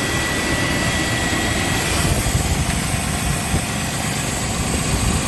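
A 1999 Chevrolet Suburban's engine idling steadily, heard close up in the open engine bay, with a faint high whine for the first couple of seconds. It keeps running without stalling as the camshaft position sensor is unplugged, so the lost cam signal is not what cuts the engine out.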